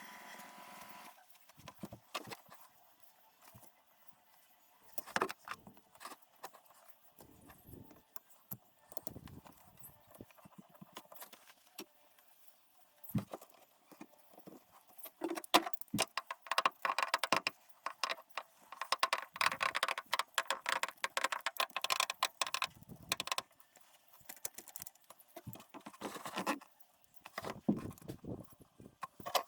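Irregular clinks, clatter and rattles of metal tools and parts as the gear shifter assembly is fitted back onto the top of a Toyota R151 gearbox and done up. The clatter is sparse at first and thickest past the middle.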